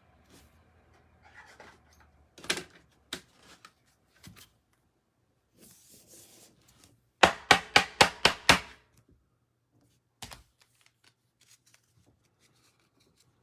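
Trading cards and packs being handled on a table: scattered light clicks and rustles, then a quick run of about seven sharp taps about seven seconds in, and one more knock a couple of seconds later.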